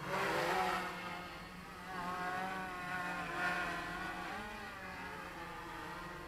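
Quadcopter on 3S with 10x4.5 propellers, its motors and props whining in flight. The pitch rises and falls as the throttle changes, with a sharp surge at the start and further surges about two and three and a half seconds in.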